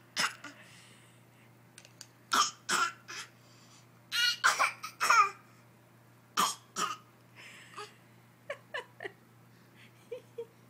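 A baby laughing in short bursts of giggles, in several clusters with pauses between; the loudest run comes about four to five seconds in.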